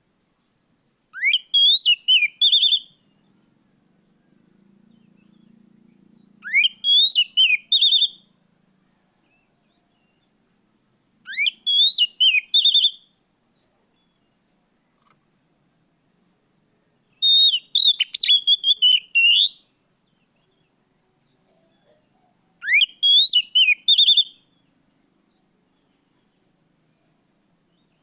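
Oriental magpie-robin singing: five separate phrases about five seconds apart. Each opens with a rising whistle and runs into a quick string of high, clear notes.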